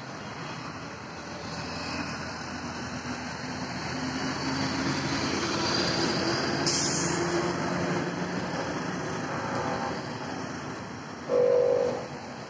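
Road traffic passing, with a vehicle engine building up and fading through the middle. Near the end comes a short, loud horn blast.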